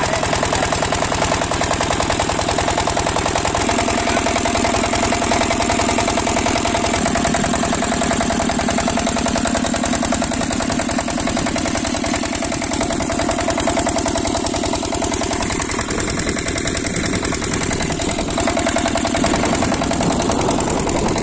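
Shakti Bharat 8 hp single-cylinder diesel engine running steadily at a fast, even chug. It is driving a water pump set.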